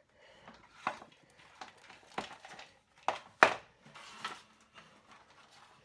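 Handling noise from plastic plug-in terminal connectors and their wires: several sharp plastic clicks and knocks with faint rustling, the loudest about three and a half seconds in.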